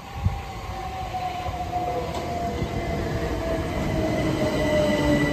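Class 377 Electrostar electric multiple unit pulling into the platform. A whine falls slowly in pitch as it slows, over a steady higher whine and a rumble that grows louder, with a single knock just after the start.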